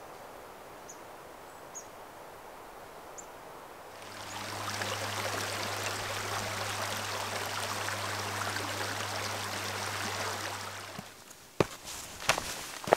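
A few faint bird chirps in quiet forest, then about four seconds in a rocky mountain creek rushes steadily for some seven seconds, with a low steady hum under it. Near the end the water cuts out and a few footsteps land on the dirt trail.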